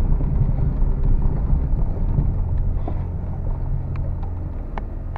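Lada VAZ-21099 car's engine running steadily with a deep hum, easing off slightly, with a few faint clicks near the end.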